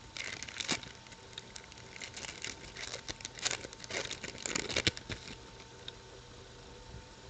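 Rustling and small clicks of baseball trading cards and their pack being handled and opened, dying down about five seconds in.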